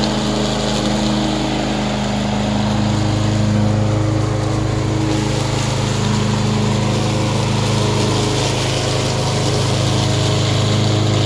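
Craftsman M260 walk-behind lawn mower's small engine running steadily under way, freshly serviced after trouble starting.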